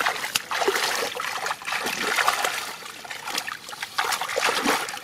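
Hands and a bare foot churning shallow muddy water and soft mud: irregular splashing, sloshing and dripping while digging by hand for fish.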